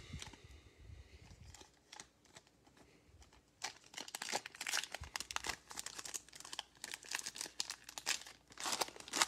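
Foil wrapper of a Panini Illusions basketball card pack crinkling and tearing as it is pulled open by hand, a dense run of crackles starting about three and a half seconds in.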